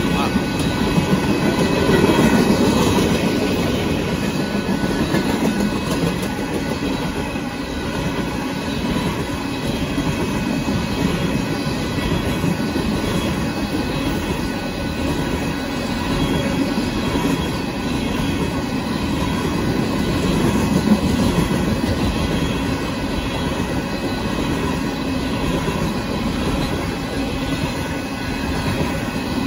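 Union Pacific tank car train rolling quickly through a grade crossing, a steady rumble of car wheels on the rails.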